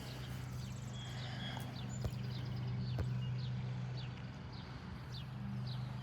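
A bird giving short, high, down-slurred chirps over and over, roughly two a second, over a steady low hum. There are two sharp ticks about two and three seconds in.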